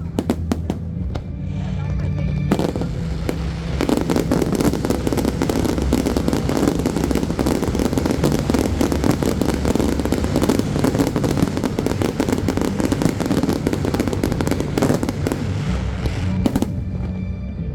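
Fireworks display: a few single bangs, then from about three seconds in a dense barrage of rapid bursts and crackling that runs until near the end, where it thins back to separate bangs. Music with a steady bass plays under it.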